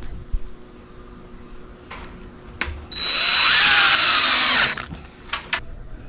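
Power drill running in one burst of just under two seconds, about three seconds in, driving a screw straight into the door's soft wood without a pilot hole. A few light clicks from handling the tool come before it.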